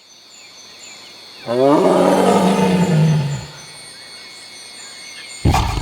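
Tiger roaring: one loud call of about two seconds starting a second and a half in, its pitch dropping as it ends, then a second roar breaks in suddenly near the end. Repeated high chirps of birds or insects sound behind it.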